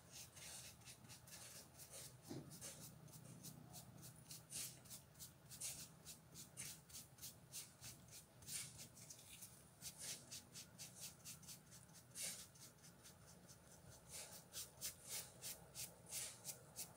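Faint, soft strokes of a bristle paintbrush brushing finish onto a wooden screwdriver handle, about one a second, coming quicker near the end.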